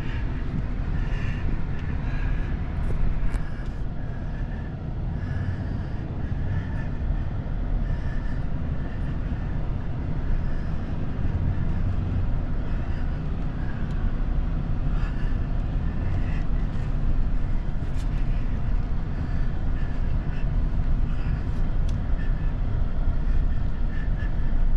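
A vehicle driving with a steady low engine and road rumble.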